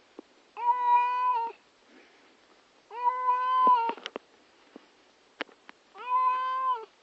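An upset domestic cat meowing three times, each meow a drawn-out call of about a second at a steady pitch, a couple of seconds apart.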